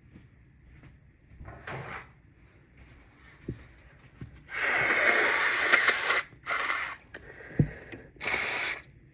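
A person with a congested head cold blowing their nose: a short nasal burst, then one long blow of about a second and a half, followed by two shorter bursts through the nose. A sharp light knock comes between the last two.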